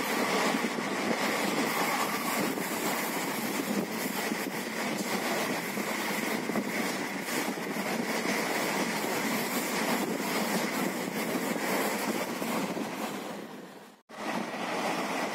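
Steady running noise of a moving passenger train, wheels on the rails with rushing air. It dips out for a moment near the end, then returns.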